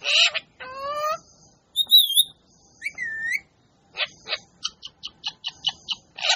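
A parrot calling: a harsh screech, a rising call, then warbling whistles and a quick run of short chirps, with another screech at the end.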